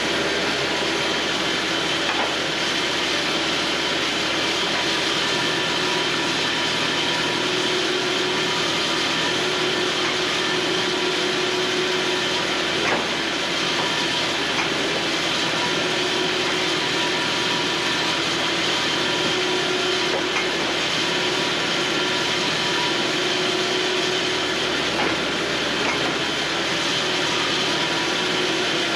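Cooks AC36 band sawmill running steadily, its blade sawing through pine, with a few faint clicks.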